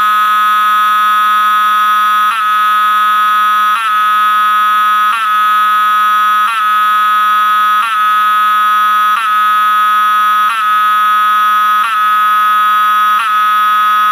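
An old-style Wheelock 7002-24 24-volt mechanical fire-alarm horn sounding loud and buzzy. It blares steadily, with a short break about every second and a half.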